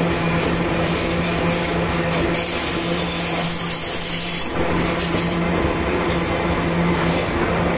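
Loaded iron-ore gondola wagons of a freight train rolling past, a steady rumble of wheels on rail with a steady low hum underneath. A high-pitched wheel squeal comes and goes, loudest about two and a half to three and a half seconds in.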